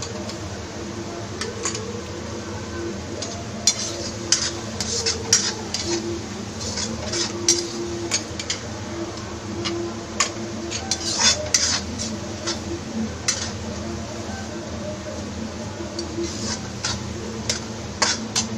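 A metal spoon scraping and clinking against a cooking pan at irregular intervals as a chilli-potato gravy is stirred while it cooks, over a steady low hum.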